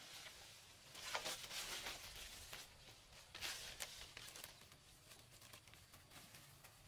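Leaves crackling and rustling as they are torn off a cluster of longan fruit by hand, in several short bursts between about one and four and a half seconds in, then only faint handling.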